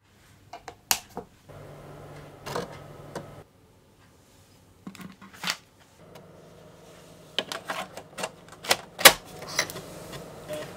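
Commodore Amiga 1200's internal 3.5-inch floppy drive at work: a low steady motor hum with irregular sharp clicks and clacks of the drive mechanism. The hum stops briefly before the middle and starts again, and the clicks bunch together near the end, the loudest just after nine seconds in.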